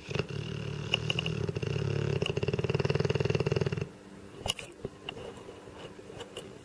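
Dogue de Bordeaux snoring: one long, rattling snore lasting about four seconds, then quieter, with a few small clicks.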